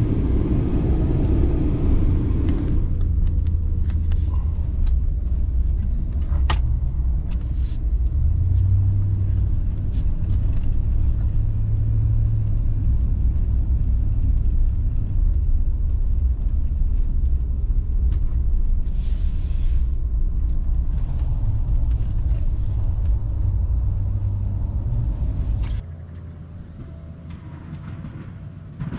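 Steady low rumble of a vehicle driving, with a few faint clicks; about 26 seconds in it drops suddenly to a much quieter level.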